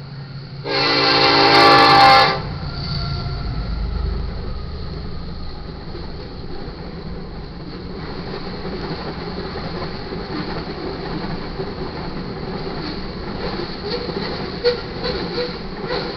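Freight locomotive air horn sounding one loud blast about a second in, as the lead unit, an EMD SD70ACe, reaches the crossing. The rumble of the locomotives going past follows, then the steady rolling noise of grain hopper cars, with wheel clatter and rattles near the end.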